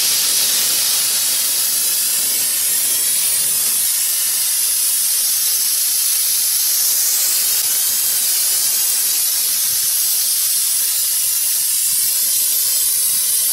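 Aerosol brake cleaner spraying in a steady, continuous hiss as it rinses brake dust off a drum brake's shoes and springs.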